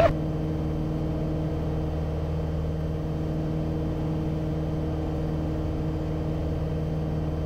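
Steady drone of a small single-engine aircraft's piston engine and propeller in cruise-climb, heard inside the cabin: an unchanging, even hum. A brief click right at the start.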